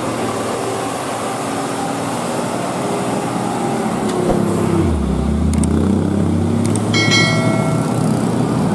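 Hino Ranger FM 260 JD dump truck's six-cylinder diesel engine running as the truck drives past and pulls away, with a deeper low rumble about five seconds in. A brief high-pitched tone sounds near the end.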